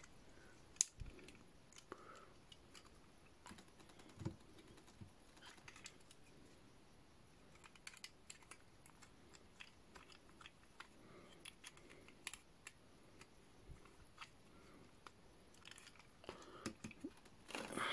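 Faint, scattered clicks and taps of small plastic pieces of a Transformers figure upgrade kit being handled and pressed into place, a little more frequent near the end.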